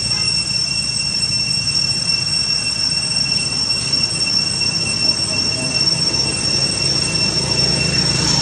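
Cicadas droning steadily at one high pitch, over a low steady rumble.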